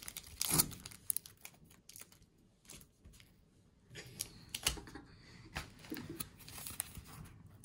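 Fingernails picking and scratching at clear tape on a small cardboard mailer, with irregular small clicks, scrapes and rustles as the cardboard is turned in the hands.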